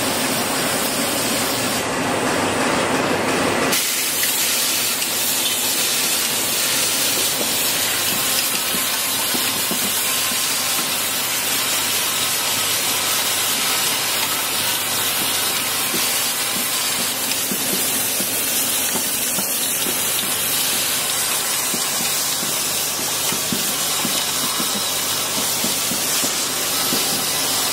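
Automatic washer-insertion machine running: a steady, dense hissing rattle from its vibratory bowl feeders and pneumatic parts, with a low hum underneath. A louder layer of mid-pitched noise in the first four seconds cuts off abruptly.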